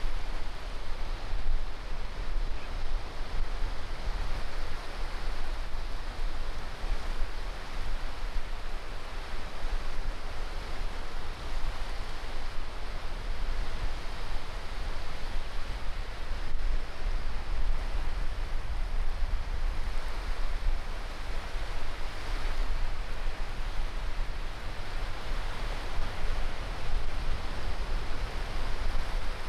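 Small waves breaking and washing up on a sandy beach: a steady rush of surf with a low rumble underneath.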